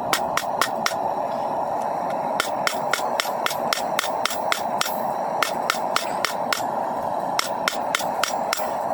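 Hand hammer striking steel on an anvil while forging a coil-spring knife blade, in quick runs of about four to five blows a second with short pauses between runs. Under the blows is a steady hiss from the propane forge burner.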